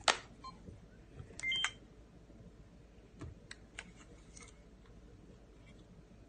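A Canon PowerShot G7 X compact camera being handled: faint clicks of its buttons and controls, with a short electronic beep about one and a half seconds in and a few more soft clicks a couple of seconds later.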